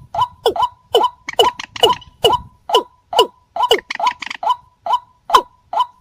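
Recorded calls of paddy-field rails played as a bird-lure recording: a fast, even string of short calls, about three a second, each sliding down in pitch.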